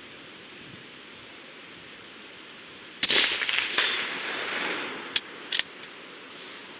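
A single rifle shot from a suppressed Remington 700 in .308 Win about three seconds in, with a rolling echo that dies away over about two seconds, and two short sharp clicks shortly after. A steady hiss of rain runs underneath.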